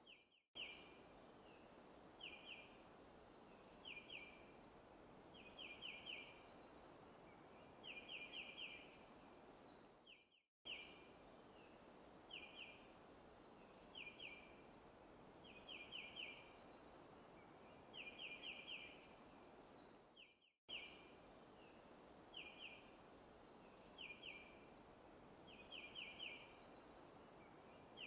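Faint looped forest ambience: a bird chirping in quick runs of one to four notes every second or two over a steady soft hiss. The recording loops about every ten seconds, with a brief dropout at each loop point.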